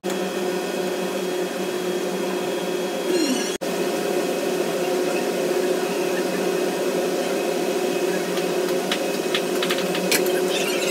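Commercial conveyor pizza oven running: a steady hum of blower fans and conveyor motor. The hum cuts out for a moment about a third of the way in, and a few light metallic clicks come near the end.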